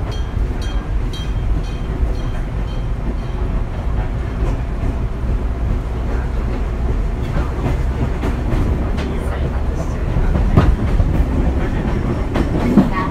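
Fujikyu 6000-series electric train, a converted JR 205-series unit, running along the line: a steady low rumble of wheels and running gear with rail-joint clatter, and a couple of louder knocks near the end.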